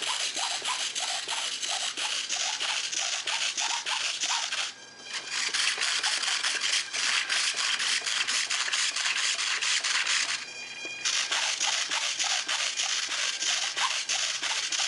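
Handling noise: a dense rubbing, scratching hiss full of small clicks, in three long stretches broken by short pauses about five and eleven seconds in.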